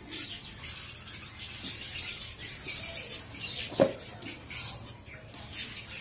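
Dry coconut coir fibre rustling and crackling as hands stuff and press it into a clay pot, with one short knock a little past halfway.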